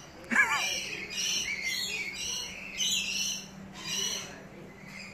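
Rainbow lorikeets chattering: repeated shrill, high twittering calls, with a louder wavering call just after the start.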